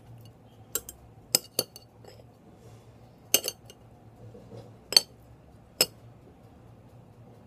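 Sharp clinks against ceramic dishes, about six of them at irregular intervals, as pieces of chicken are moved from a plate into a baking dish.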